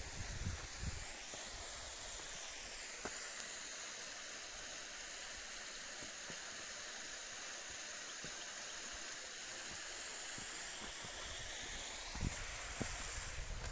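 Steady hiss of a shallow creek running over rocks, with low bumps of wind or handling on the microphone near the start and again near the end.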